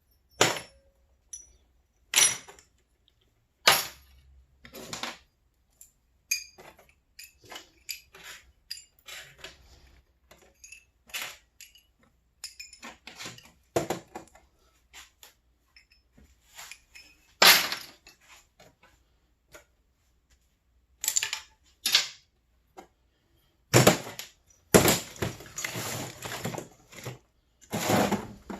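Small pieces of scrap metal, brass, aluminum and steel, clinking and clanking as they are picked up and tossed into piles while being sorted. There are many single sharp clanks, and a denser spell of rattling toward the end.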